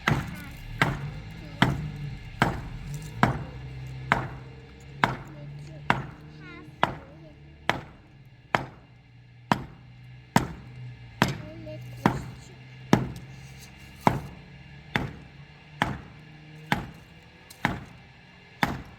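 Steady, evenly paced blows of a hand tool on wood, a little over one a second, over a steady low hum.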